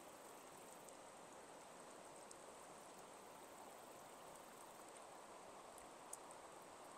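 Faint, steady rush of flowing stream water, with a couple of faint ticks about six seconds in.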